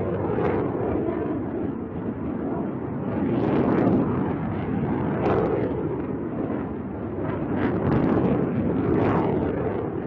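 A missile launched from a submerged submarine climbs away with the rumbling roar of its rocket motor. The roar swells and fades several times.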